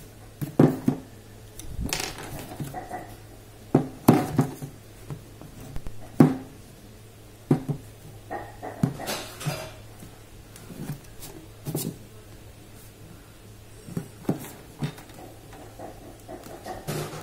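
Cardboard parcel handled on a chipboard table: irregular knocks and thumps as it is picked up, turned over and set down, with scraping and rustling of the box between them.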